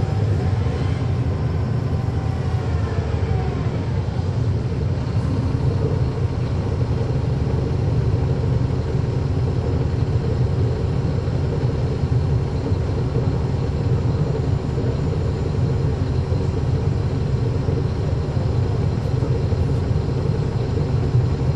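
Caterpillar C13 diesel engine of a 2009 NABI 40-foot suburban transit bus running steadily, heard from on board with its engine fans on. A faint whine falls in pitch over the first few seconds.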